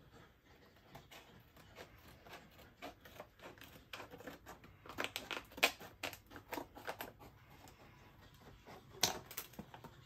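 Kitchen scissors snipping and plastic crinkling as a tightly sealed plastic pasta tray is cut open: a faint run of short, irregular clicks and crackles, thickest about halfway through and again near the end.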